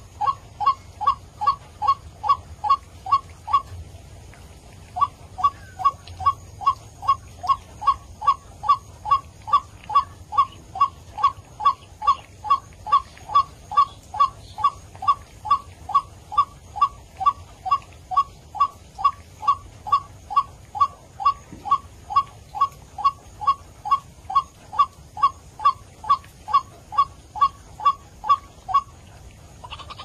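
White-breasted waterhen (ruak-ruak) giving a fast, even series of harsh calls, about two and a half a second, each note dropping in pitch. The series breaks off for about a second near the start, then runs on until it stops shortly before the end. It is a recorded lure call used to draw waterhens in for trapping.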